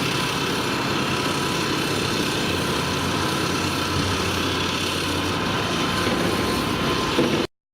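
Volvo EC 300 DNL crawler excavator's diesel engine running steadily under work, cutting off abruptly near the end.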